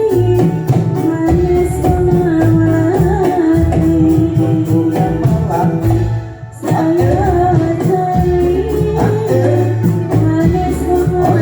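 Javanese Ndolalak music: a sung melody over percussion with a steady beat and tambourine-like jingles. It drops out briefly about six seconds in, then resumes.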